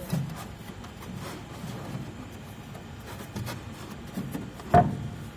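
Faint scraping and small clicks of a metal fan wheel being eased by hand onto an air-conditioner motor shaft, with one sharp clack near the end.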